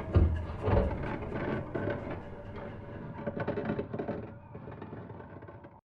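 Rapid rattling knocks with two heavier thumps in the first second, over a steady low drone, fading out and stopping just before the end.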